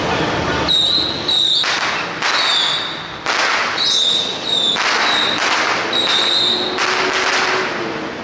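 Firecrackers crackling in repeated bursts, with about six short, high whistle blasts sounding over them.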